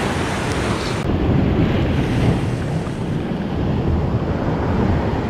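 Open-sea surf washing against a rocky shore, with wind rumbling on the microphone. The hiss at the top thins about a second in.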